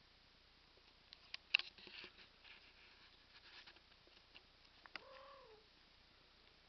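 A kitten mews once, a short falling cry about five seconds in. Before it, about a second and a half in, come a few sharp clicks and taps, the loudest sounds here.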